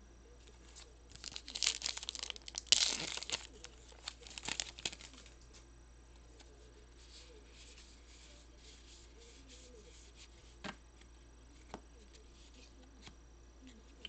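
A trading-card pack wrapper being torn open and crinkled, in a run of sharp rustling bursts over the first few seconds, followed by two faint clicks near the end.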